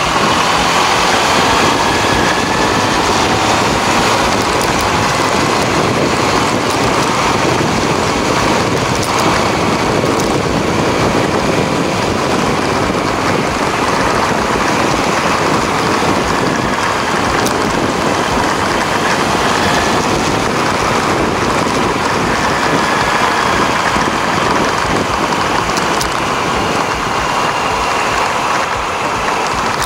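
Honda CB400 Super Four's inline-four engine running steadily on the move, under a steady rush of wind and road noise. The engine note drifts only slightly in pitch.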